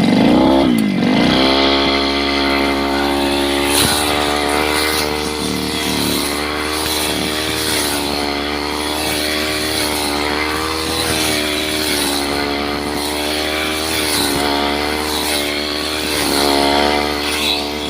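Brush cutter engine revving up in the first second or so, then running steadily at high revs, its pitch wavering slightly as it cuts grass.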